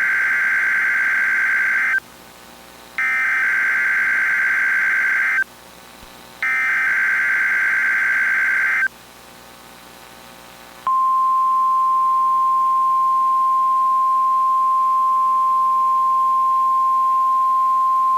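NOAA Weather Radio SAME alert header: three identical bursts of buzzing digital data tones, each about two and a half seconds long with a one-second pause between them. About two seconds after the last burst, the steady 1050 Hz warning alarm tone starts and holds. Together they make the signal that switches on weather radio receivers, here for the weekly test of the warning alarm.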